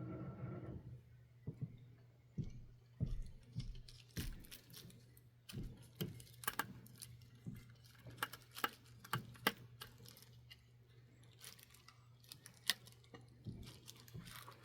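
Scattered light clicks and taps of small tools and metal parts being handled while a brass HO model locomotive is put back together, over a steady low electrical hum. A humming tone cuts off under a second in.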